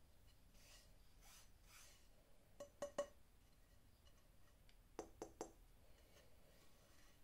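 Light clinks of hard objects knocked together, in two quick sets of three about two seconds apart, over near silence.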